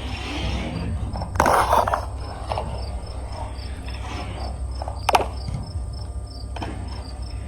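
Marbles clicking and rattling along a marble-run track: a quick cluster of clacks about a second and a half in, then a few single clicks, the sharpest about five seconds in. Crickets chirp steadily in the background over a low hum.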